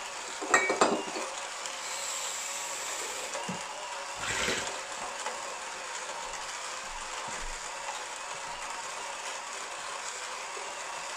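Motorised hand coffee grinder with about 38 mm burrs grinding a dose of beans, running slowly and steadily. A few sharp clinks come about half a second in, and a brief swell of noise around four and a half seconds.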